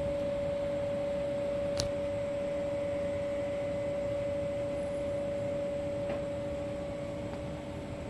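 Steady hum with a clear, even tone over a low rumble, and one sharp click about two seconds in.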